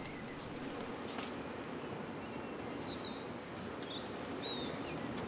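Steady low background noise with a few short, high bird chirps in the second half. There is a faint click about a second in.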